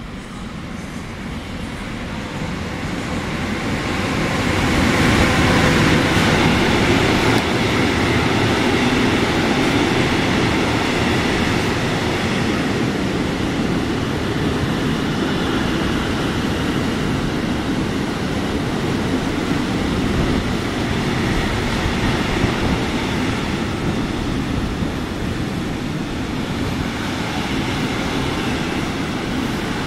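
An E.484 electric locomotive (Bombardier TRAXX) hauling a container freight train through a station at speed. The noise builds over the first few seconds as the train arrives, then the wheels on the rails keep up a loud, steady rumble as the container wagons pass.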